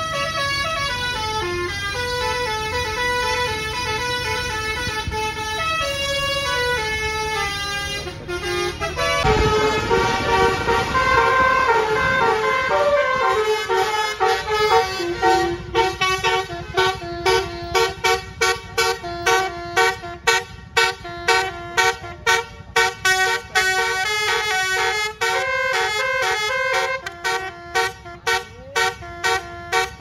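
Basuri telolet horn on a tour bus playing a melody in stepping multi-tone notes. About nine seconds in the tune changes to a fast, choppy rhythm of short notes.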